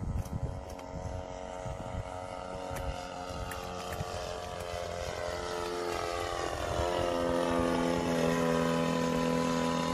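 Radio-controlled model airplane flying overhead, its propeller engine droning steadily and growing louder as it comes close. Its note drops in pitch about six to seven seconds in as it goes past.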